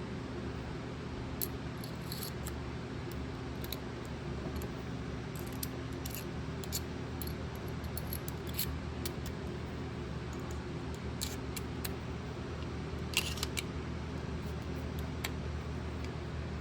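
Scattered small clicks and taps from handling a precision screwdriver and its bits, over a steady low hum.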